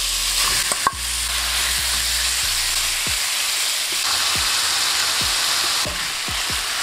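Chicken strips frying in hot oil in a non-stick pan, sizzling steadily. In the second half, a spatula stirring the pieces adds a series of light clicks and knocks.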